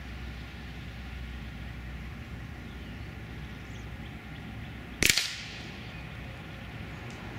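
A single sharp gunshot crack about five seconds in, heard from far off at the target end of the range, with a short ringing tail over a steady low rumble.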